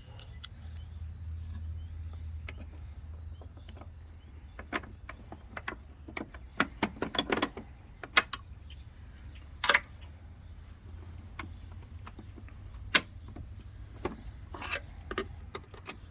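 Irregular metallic clicks and knocks of hand work on a Jeep Wrangler's hood latch hardware while a fastener is started, with a quick run of clicks about seven seconds in, over a low steady hum.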